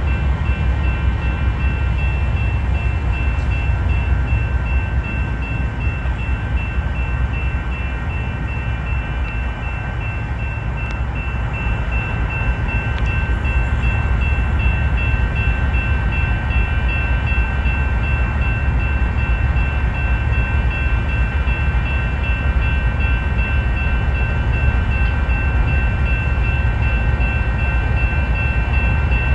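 Union Pacific GE diesel locomotive No. 5790 running close by: a steady low engine rumble with a steady high whine over it.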